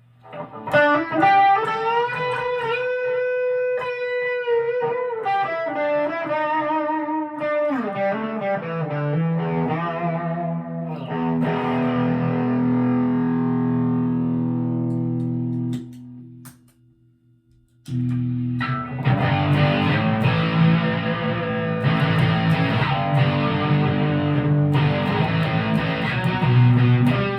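Chapman ML3 Pro Modern electric guitar played through an amp: a single-note line with bends and vibrato, then held chords. After a two-second break near the middle, a denser, distorted riff.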